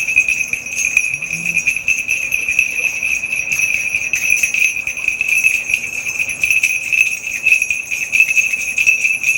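Korean shaman's bell rattle (a cluster of small brass bells on a handle) shaken without pause in a steady, dense jingle, as the shaman calls on the spirits during a divination reading.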